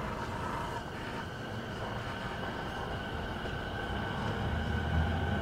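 Inside a JR 209 series 2200-subseries electric train car: a steady hum and rumble of the car with a steady high tone over it. The low rumble grows a little louder near the end.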